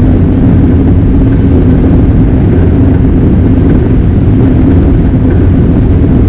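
New Holland TR86 combine running under load while harvesting corn, heard inside the cab as a loud, steady drone with a constant hum.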